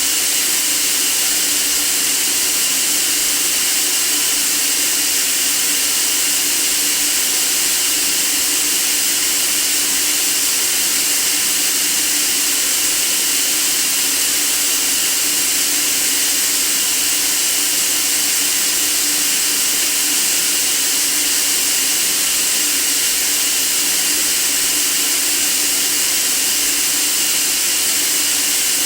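Steady white noise hiss, unchanging throughout, heaviest in the high frequencies.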